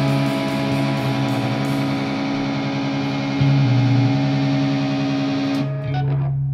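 Heavily distorted electric guitar holding sustained chords over a low bass note as a rock song ends. Near the end the chord breaks off and a single low note rings on.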